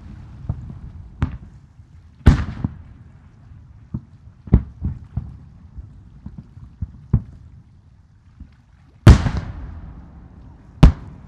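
Aerial fireworks shells bursting: a run of sharp booms at uneven spacing. The loudest comes about nine seconds in and leaves a long fading tail.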